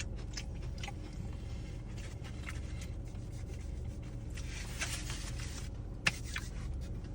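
Quiet eating sounds: faint scrapes and clicks of a utensil on food, with a sharper click about six seconds in, over a steady low rumble.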